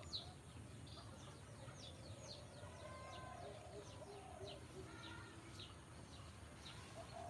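Faint birdsong: many short, high chirps, each sweeping downward, scattered throughout, with a few softer, lower notes among them.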